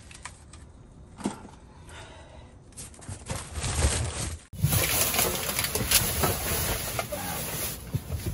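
Rustling and knocking of cardboard boxes and plastic food packaging being handled and shifted, with a sharp knock about a second in. About halfway through the sound cuts abruptly and the handling noise is louder after it.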